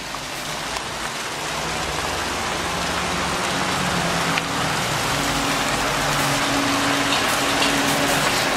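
A heavy truck's engine drone grows louder as the truck approaches, under a steady hiss. Its hum steps up to a higher pitch about halfway through.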